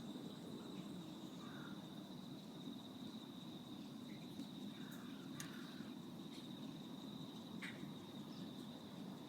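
Insects trilling in one steady high-pitched note over a low, even background rumble, with a few short faint chirps now and then.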